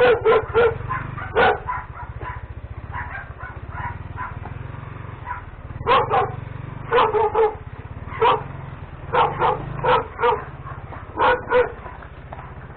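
Dogs barking at a passer-by, in clusters of short sharp barks: several at the start, then again from about six seconds in and on toward the end. A steady low engine drone runs beneath.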